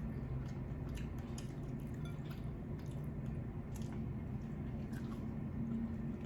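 Wet chewing and mouth sounds of someone eating a shrimp boil: scattered small clicks and squishes over a steady low hum.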